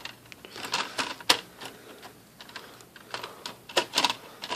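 Scattered light clicks and taps of plastic laptop parts being handled and fitted together, irregular with quiet gaps between.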